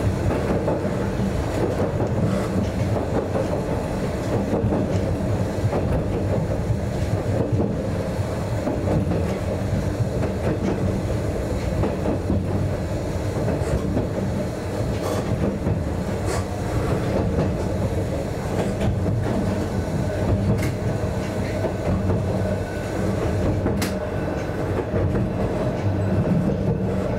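Narrow-gauge (762 mm) Yokkaichi Asunarou Railway electric train running, heard from inside the cab: a steady rumble of wheels and motors, with occasional sharp clicks.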